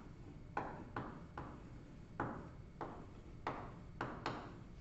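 Chalk knocking and stroking on a blackboard as a diagram is drawn: about eight short, sharp taps at irregular intervals.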